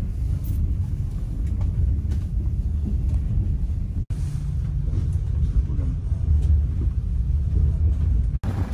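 Passenger train running at speed, heard from inside the carriage as a steady low rumble, with a brief drop-out about four seconds in.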